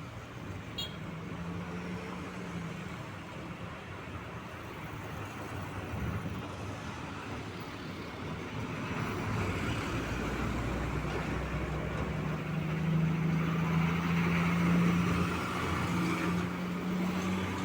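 Road traffic: a truck engine humming steadily over tyre and road noise. It grows louder from about halfway through and is loudest near the end as the vehicle comes close.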